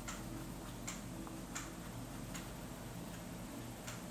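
Faint, light ticks about every three-quarters of a second, over a low steady hum.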